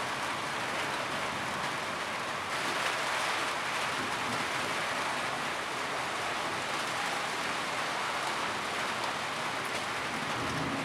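Steady heavy rain falling on a roof, a dense even hiss. About two and a half seconds in, the higher, sharper part of the patter gets brighter.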